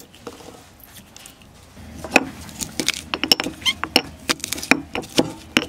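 A marble pestle pounding and crushing garlic cloves in a marble mortar. It starts about two seconds in and goes on as a quick, irregular run of sharp stone-on-stone knocks and crunches, several a second.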